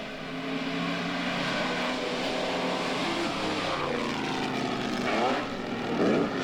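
Pre-war Mercedes-Benz Grand Prix racing cars' supercharged engines running at speed on track: a steady engine note, rising sharply in pitch twice near the end.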